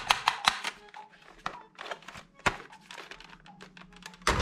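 Plastic toy guns knocking and clattering against each other and the cardboard box as they are handled: a quick run of sharp clicks in the first second, then scattered single knocks. A loud steady sound cuts in right at the end.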